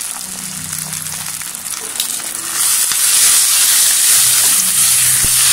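Chopped onions and tuna frying in a stainless steel pan with a steady sizzle. About two and a half seconds in, water is poured from a glass into the hot pan and the sizzle turns into a much louder hiss.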